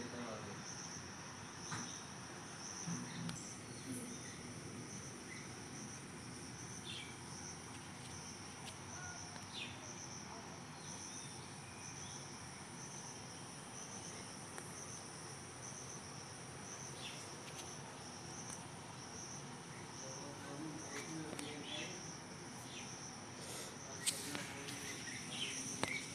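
Insects chirping steadily, a high, evenly pulsing chirp that keeps on throughout, with a couple of sharp clicks near the end.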